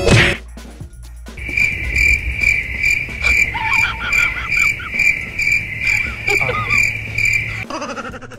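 Cricket chirping, an even high trill of about three chirps a second that cuts off abruptly near the end, in the manner of the 'crickets' silence sound effect.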